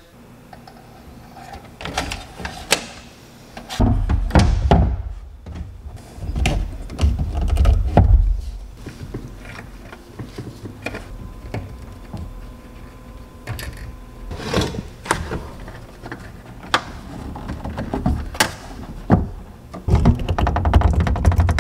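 A large zip tie being fed through a metal bracket and around a 4-inch PVC pipe in a pickup bed: scattered plastic clicks, knocks and thumps as the pipe and tie are handled. Near the end comes a quick run of ratcheting clicks as the zip tie is pulled tight.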